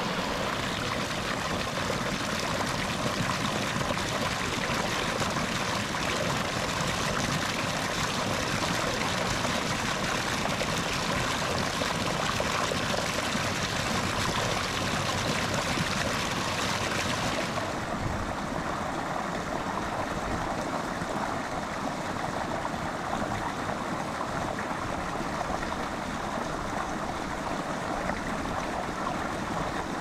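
Irrigation water gushing from a pipe outlet and splashing into an earthen channel, a steady rushing of water. A little over halfway through, the sound turns duller and softer, water running along a shallow ditch.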